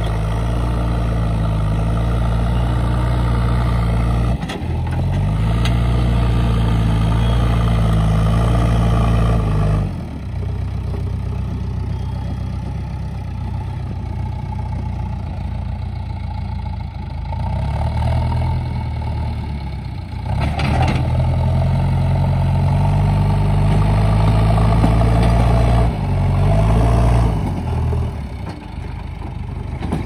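JCB 3DX backhoe loader's diesel engine working at high revs as the machine drives and scrapes with its front bucket. The engine speed drops back about a third of the way in, rises again a little past halfway, and falls off near the end.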